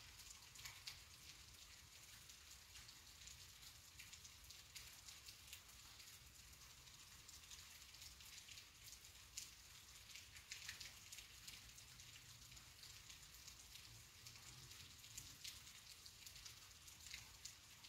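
Faint, steady light rain at night, with many separate drops ticking through a soft even hiss.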